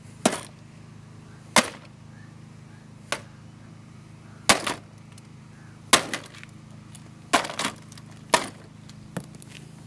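A two-pound hammer smashing a coffee machine: about eight irregular blows, a second or two apart, two of them lighter.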